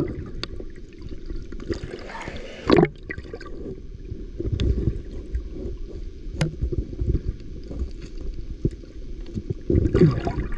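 Muffled river water gurgling and sloshing, with a few sharp knocks; the loudest is about three seconds in.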